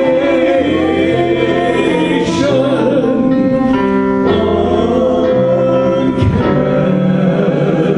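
Gospel worship music: a singer holding long notes over instrumental accompaniment, with chord changes every second or so.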